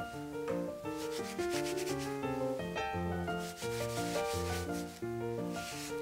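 Terry towel rubbing over a round wooden coaster in repeated strokes, buffing in coconut oil, heard over background piano music.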